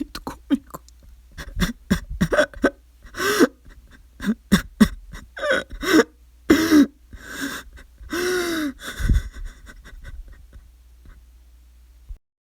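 A man crying: irregular broken sobs with sharp gasping in-breaths, a few drawn-out wavering sobs around the middle. It grows fainter and cuts off shortly before the end.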